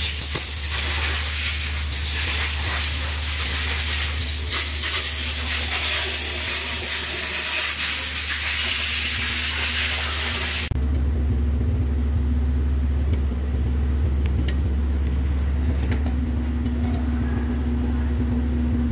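Steady low machine hum under a hiss. About ten seconds in, the hiss stops abruptly and the hum grows louder, with a steady higher tone over it.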